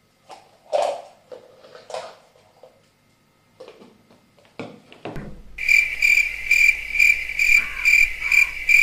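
Cricket chirping sound effect played as a comic background sound: an evenly pulsing high chirp, about two a second, starting about five and a half seconds in. A few faint short sounds come before it.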